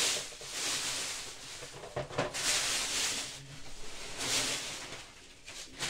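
Clear plastic bag rustling and crinkling as it is pulled off a plastic pet carrier, in several bursts, with a single knock about two seconds in.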